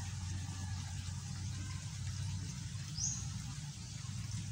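A bird gives one short, high, rising chirp about three seconds in, over a low steady hum.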